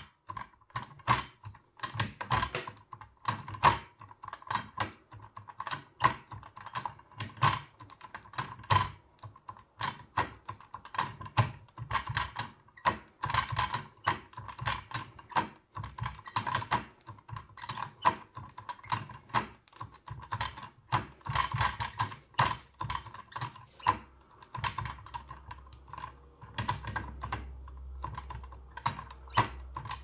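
Irregular, rapid metallic clicks and taps of a lever-lock pick working the levers inside an opened Fiam Iseo 6+6 lever lock, as the levers are lifted and set one by one.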